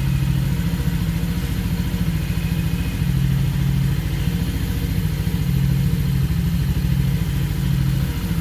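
Motorcycle engine, a Keeway SR 125's small single-cylinder, idling steadily with an even low pulse.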